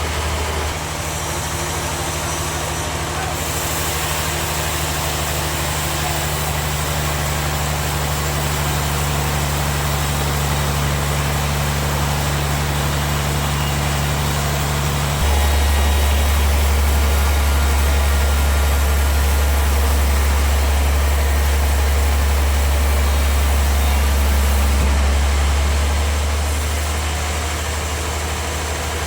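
Sawmill machinery running with a steady, deep engine-like hum. About halfway through the hum suddenly gets louder and lower, and it eases off again near the end.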